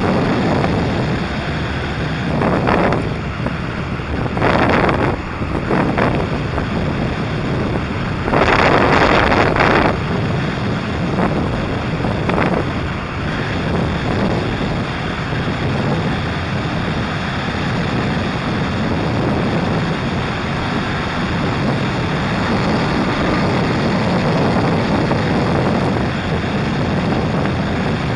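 Wind buffeting the microphone of a moving motorcycle, over a steady engine and road rumble; a few louder gusts of wind come in the first ten seconds, then it settles to an even rush.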